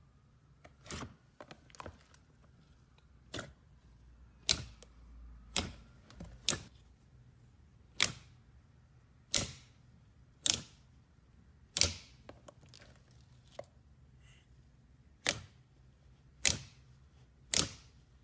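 Glitter slime being pressed and poked, giving sharp wet popping clicks, roughly one a second with a few quick doubles, as trapped air bubbles burst.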